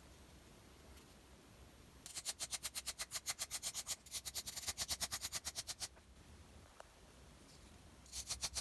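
Brass brush scrubbing the metal file of a Leatherman Squirt PS4 multi-tool with quick back-and-forth strokes, about seven a second. There are two bouts: one starts about two seconds in and lasts some four seconds, and another starts near the end.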